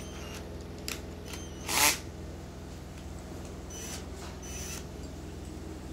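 A wood auger bit being fitted into a cordless drill's keyless chuck by hand: a few clicks, then a short loud scrape about two seconds in and fainter rasps later as the chuck is twisted. All of it sits over a steady low hum.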